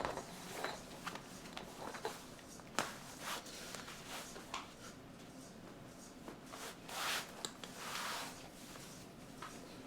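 Faint rustling and light clicks of a gun belt being threaded through trouser belt loops, with brief swishes of the belt sliding through about seven and eight seconds in.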